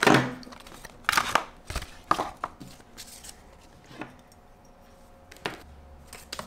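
Clear plastic blister packaging crackling and snapping as it is pulled apart by hand, in several short bursts with quiet between them.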